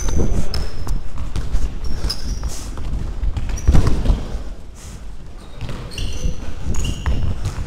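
Sneakers squeaking in short chirps on a sports-hall floor amid running footsteps and the rumble of a chest-mounted camera moving with a player, with a sharp thud of the ball being played a little over three and a half seconds in.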